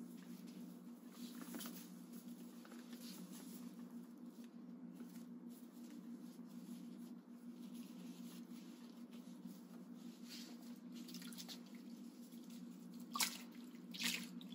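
Faint wet washcloth sounds: a soapy cloth rubbing and water dripping as a patient's arm is washed, over a steady low hum. Two brief louder sounds come near the end.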